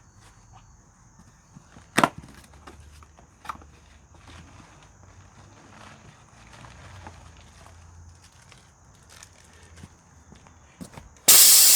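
Footsteps and scattered light clicks and knocks from someone moving about and handling parts. There is one loud sharp knock about two seconds in, and a short loud burst of noise just before the end.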